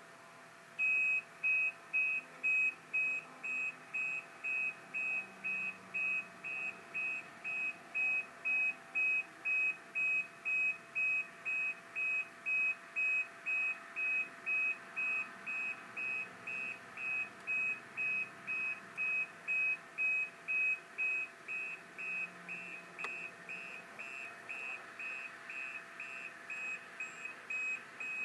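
Reverse alarm of a CAT 950M wheel loader backing down off a lowboy trailer: a steady run of loud, high single-pitch beeps, about one and a half a second, starting about a second in.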